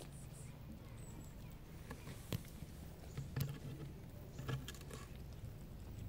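Street cats crunching dry food off pavement: scattered faint crunches and clicks, with a few louder ones in the middle, over a low steady rumble.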